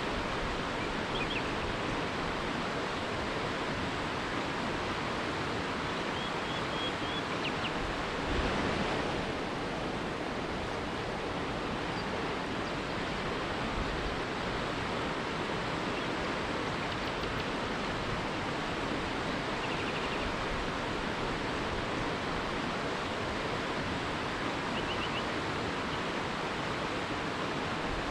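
River rapids rushing steadily, with a few faint, brief bird chirps now and then.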